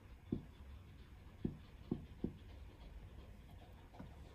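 Marker writing on a tabletop easel pad: faint strokes with several short taps as the marker tip lands on the surface.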